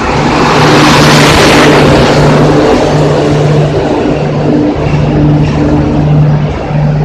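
Rajdhani Express passenger coaches rolling past at speed close by as the train enters the platform: a loud, continuous rush of wheel and rail noise, loudest about a second in, with a low hum that cuts in and out.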